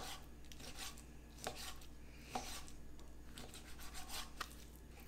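Chef's knife slicing raw chicken breast into small strips on a plastic cutting board: faint, irregular taps of the blade reaching the board about once a second.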